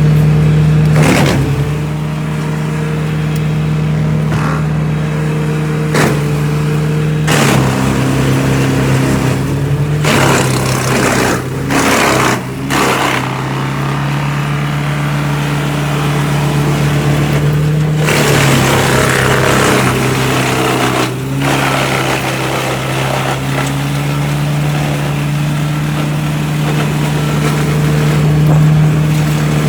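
Wood chipper's engine running steadily under load, its pitch dipping slightly at times, with sharp cracks every few seconds and a longer stretch of crunching near the middle as wood is fed through and chipped.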